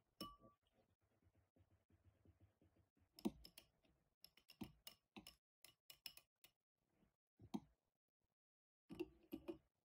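Stainless-steel wire whisk clicking against a glass bowl while stirring a wet yogurt and egg-yolk batter, in irregular sharp clicks. It pauses for about a second shortly before the end, then gives a few more clicks.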